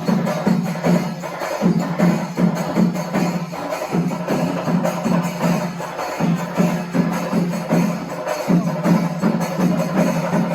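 Percussion-led music with a fast, steady beat of many quick strikes and jingling metal over a sustained low drone.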